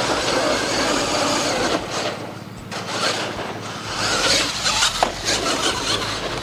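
Radio-controlled monster truck running and driving in a freestyle run: a rough, noisy drive sound with no steady pitch, easing off in the middle and picking up again, with a sharp knock about five seconds in.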